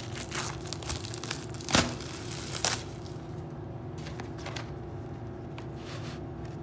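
Plastic shrink wrap being torn and peeled off a VHS tape case: busy crinkling for the first three seconds, with two sharper tearing snaps about two and three seconds in, then only a few faint rustles.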